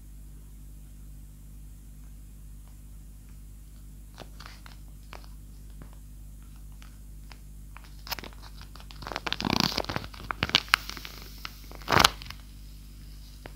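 Paper squishy being squeezed and crinkling: scattered faint crackles, then a dense burst of crunching about nine seconds in, a few sharp crackles, and the loudest crunch near the end. Its crunch is crisp, as the maker calls it.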